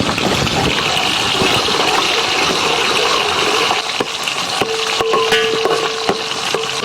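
Shallots sizzling in hot wood-pressed sesame oil with mustard seeds and whole spices: a steady loud frying hiss with scattered clicks. A steady hum-like tone joins about two-thirds of the way through.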